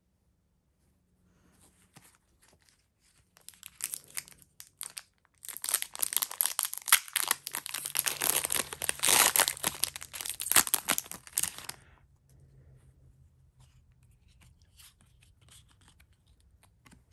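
A Pokémon TCG booster pack's foil wrapper being crinkled and torn open by hand. It starts as scattered crackles, then gives a dense run of crackling and tearing that lasts about six seconds. After that come faint handling sounds as the cards are taken out.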